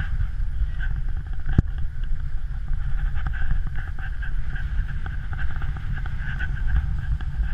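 Wind buffeting the camera microphone with a heavy rumble as a snowkiter is pulled over snow, over a steady hiss and scrape of skis on the snow. There is one sharp knock about one and a half seconds in.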